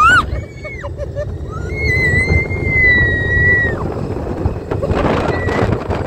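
Wind rushing over the microphone and the rumble of an open ride car at speed on Test Track's outdoor high-speed loop. Over it a young girl screams: a sharp rising scream at the very start, then a long, held high squeal about two seconds in, and a brief squeal near the end.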